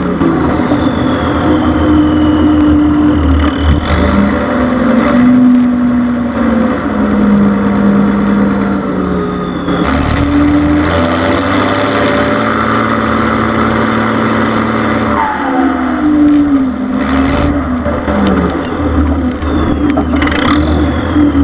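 Ursus 1614 tractor's turbocharged diesel engine running and revving, its pitch stepping up and down, with a high turbo whistle that falls away near the start and again near the end.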